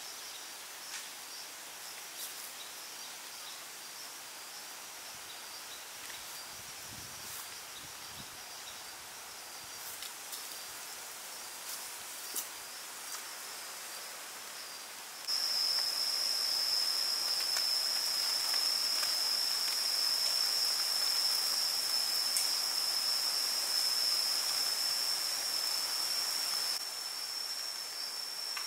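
Steady, high-pitched chirring of an insect chorus, which jumps suddenly louder about halfway through and eases back a little near the end. A few light taps and rustles come through in the first half.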